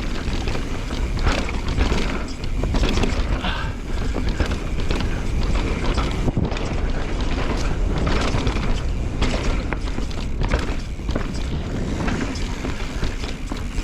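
Pivot Switchblade mountain bike running fast down a rough trail: a steady rush of tyre and trail noise with frequent knocks and rattles as the bike hits roots and rocks.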